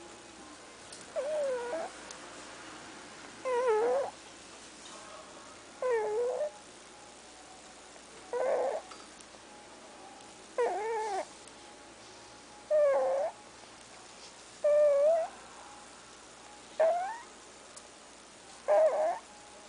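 A sleeping pet snoring loudly: a wavering, squeaky pitched note on each breath, repeating evenly about every two seconds.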